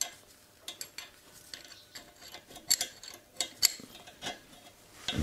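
Light metallic clicks and clinks of a small wrench working a brake-line fitting, joining a rubber brake hose to a steel brake tube: about ten short, scattered taps, the loudest a little past halfway.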